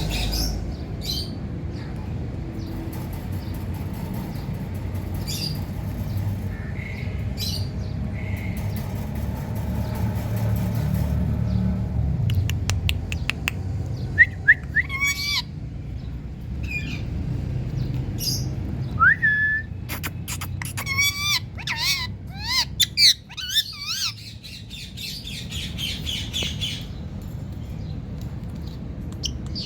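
Indian ringneck parakeet squawking and chirping in short, sharp calls, sparse at first and coming thick and fast in the second half, some in quick rattling runs. A steady low rumble lies underneath.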